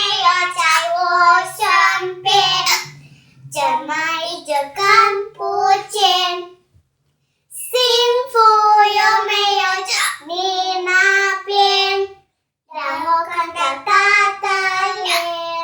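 Young twins singing a song together in high child voices, the phrases broken now and then by short, sharp hiccups. The singing stops for about a second twice.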